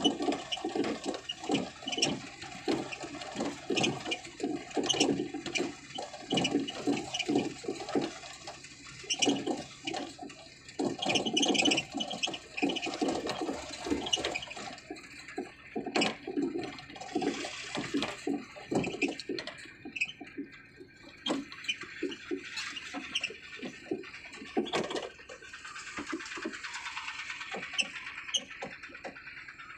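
Mahindra Jeeto mini truck driving slowly over a rough dirt track, heard from inside the cab: a running engine under a constant, irregular clatter of knocks and rattles from the body jolting over the ruts. The knocking thins out near the end, leaving a steadier hiss.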